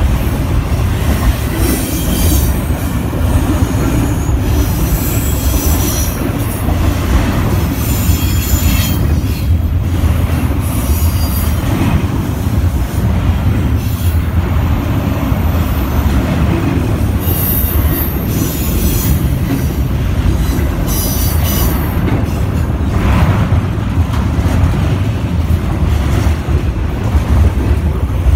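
Double-stack intermodal freight train's well cars rolling past at close range: a steady heavy rumble of wheels on rail, with high-pitched wheel squeals that come and go every few seconds.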